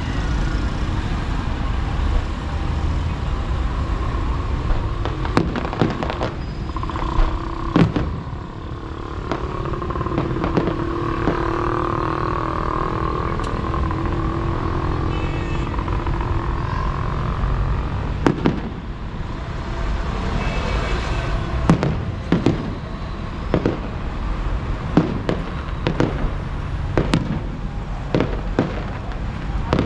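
Aerial fireworks bursting: a string of sharp bangs at irregular intervals, coming thicker after about eighteen seconds, over a steady low rumble.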